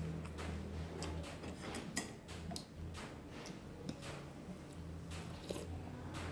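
Close-up eating sounds of a person having a bowl of noodle soup: soft chewing and slurping with many small, irregular clicks as chopsticks and a metal spoon work in the bowl, over a low steady hum.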